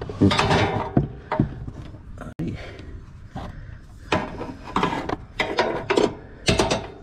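Irregular scraping, rubbing and light knocking of a riding mower deck's metal linkage rod being worked by hand into its bracket.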